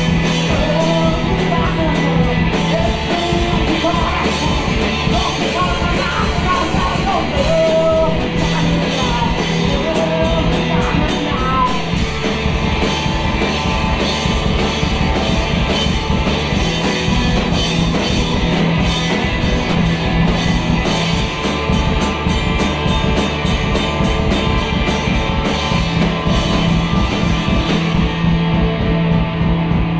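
Loud rock music with dense drumming throughout and a sung or shouted vocal line in roughly the first twelve seconds, then instruments alone.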